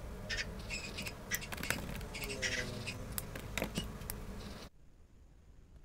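Acrylic paint marker tips drawing wavy swatches on notebook paper: short squeaky, scratchy strokes in quick bursts with a few sharp clicks. It stops abruptly about a second before the end.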